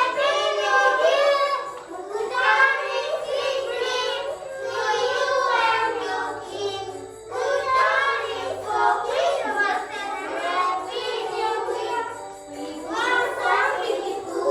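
A group of young children singing a Christmas song together in high voices, phrase after phrase with short breaths between.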